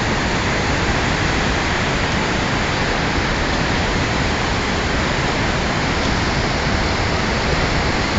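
White water of a river pouring down a rocky gorge: a steady, unbroken rush of water.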